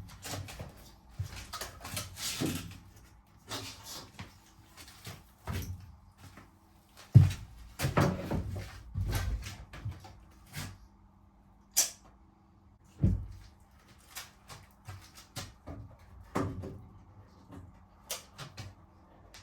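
Irregular knocks, clunks and short scrapes of timber battens and tools being handled while fitting wall framing, with a sharp knock about seven seconds in as the loudest and a dull thump a few seconds later.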